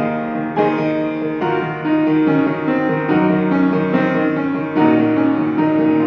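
Solo piano playing a recital piece, full sustained chords changing about once a second.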